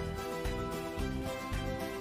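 Background music: soft, sustained notes.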